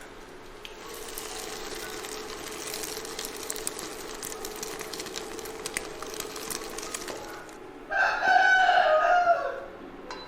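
A rooster crowing once, a single long call of about a second and a half near the end, over a steady hiss with faint crackling.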